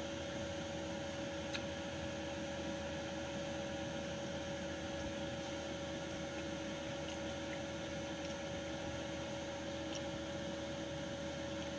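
Steady hum with a constant tone, over a faint even background hiss, broken only by a couple of very faint clicks.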